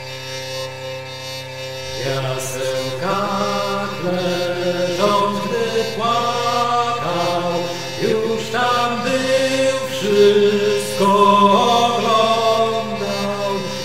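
Chant: a single voice singing a slow melody note by note over a steady held drone. The singing comes in about two seconds in.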